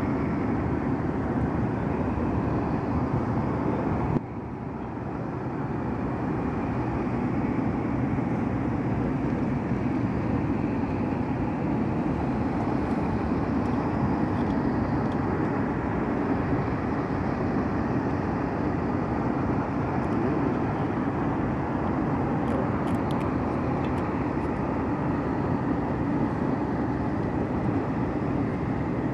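Steady rumbling outdoor noise of an airfield, dipping briefly about four seconds in before settling back.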